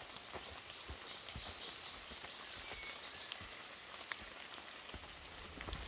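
Rain pattering on the leaves of dense forest, with scattered drips. A faint high trill runs through the first three seconds or so.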